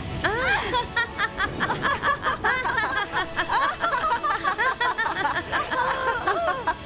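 High-pitched cartoon laughter: a rapid, cackling run of short chopped bursts, several a second.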